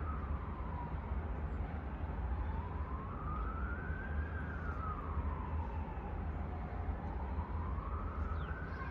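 Siren wailing slowly, its pitch rising and falling about every four to five seconds, over a steady low rumble.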